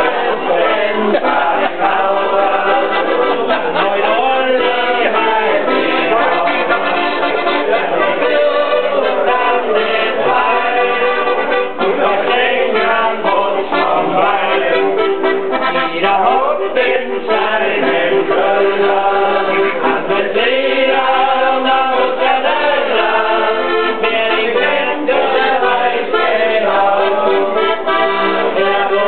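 Button accordion playing a tune, without a break.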